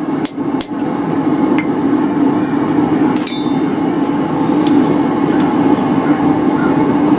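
Hammer blows on a hot railroad spike at the anvil: a handful of irregular strikes, one of them ringing, over a steady low hum.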